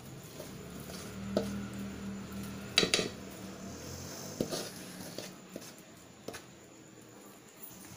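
Metal spatula scraping and knocking against a steel pan and plate as thick, hot Mysore pak mixture is tipped out and scraped into the plate: a handful of separate sharp clinks, the loudest about three seconds in.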